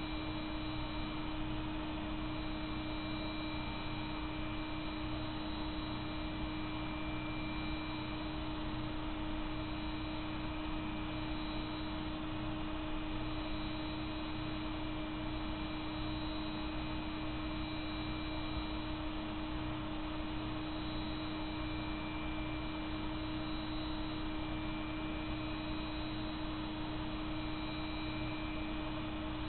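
Steady electrical hum with one constant tone and an even background hiss, unchanging throughout.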